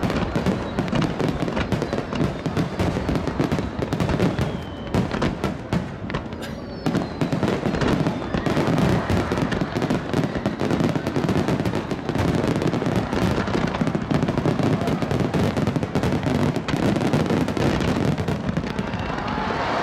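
Aerial fireworks display: shells bursting in rapid succession, a dense run of overlapping bangs and crackling, with a couple of faint whistles sliding in pitch around four and seven seconds in.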